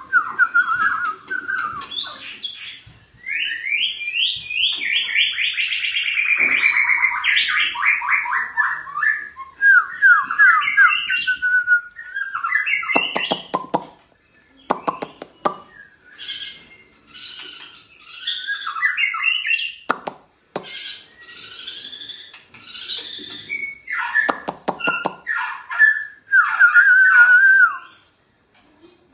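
White-rumped shama (murai batu) singing in full, vigorous song: a long, varied run of loud whistled phrases and rapid trills, broken by a few short clicking bursts.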